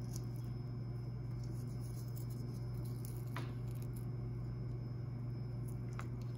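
A steady low hum, with a few faint soft clicks as a crisp, flaky paratha is torn by hand and a piece dipped into green chutney and pickle.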